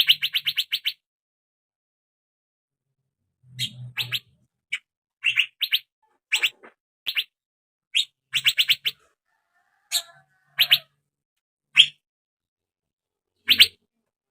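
Young male Asian fairy-bluebird calling: short bursts of quick, sharp, high notes with pauses of about a second between them, opening with a fast run of notes.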